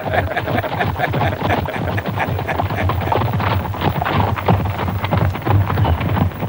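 Horse-drawn carriage with a pair of horses moving over cobblestones: hooves clattering and wheels rattling in a dense, continuous clatter.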